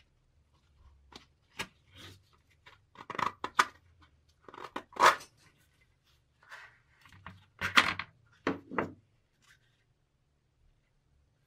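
Plastic wrapping on a wooden axe handle being pulled open and peeled away: a run of irregular crinkling and tearing rustles, loudest about five and eight seconds in.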